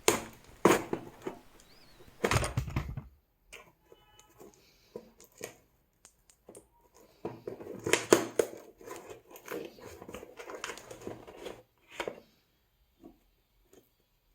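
Hands handling a product package: plastic and cardboard crinkling and rustling with sharp crackles, heaviest in the first three seconds and again from about seven to twelve seconds in.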